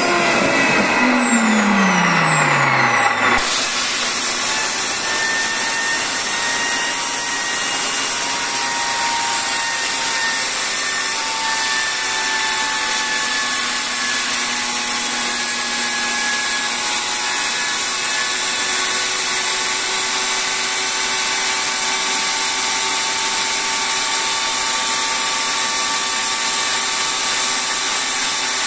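Micro turbojet engine winding down after shutdown, its whine falling steeply in pitch over the first three seconds. About three seconds in, a steady loud hiss of compressed air from a blow gun aimed into the engine starts abruptly, with a faint whine of the rotor still turning in the airflow.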